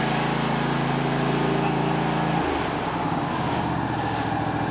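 Zero-turn riding mower engine running as the mower drives up. A little over halfway through, the engine slows and its note drops lower and rougher.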